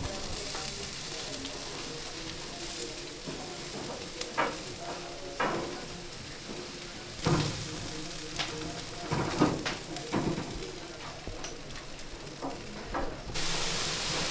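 Chicken sizzling on a wire-mesh grate over a charcoal fire, with metal tongs clicking and scraping against the grate several times. The sizzle grows louder near the end.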